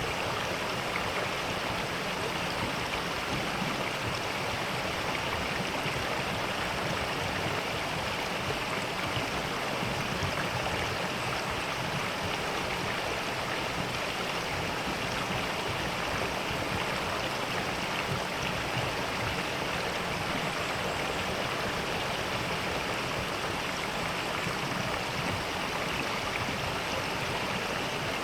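Mountain valley stream flowing, a steady rush of water.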